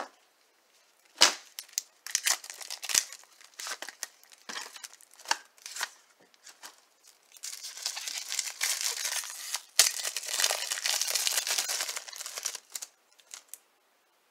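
A trading card pack wrapper being torn open and handled: a few sharp rips and clicks, then steady crinkling for about five seconds from about seven seconds in.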